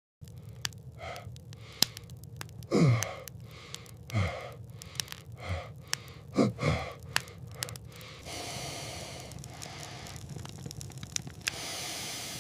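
A man gasping and groaning in five short breaths that each drop sharply in pitch, among scattered crackling clicks; a steady hiss comes in after about eight seconds.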